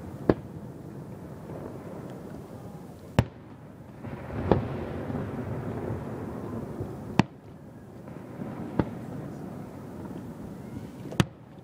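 Aerial fireworks shells bursting: six sharp bangs a second or a few seconds apart, over a steady background noise.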